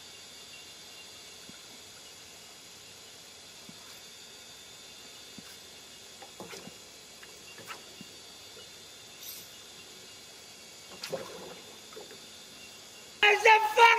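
Quiet open-air ambience on still water, with a few faint scattered clicks and small knocks. Near the end a loud, sustained pitched sound cuts in suddenly.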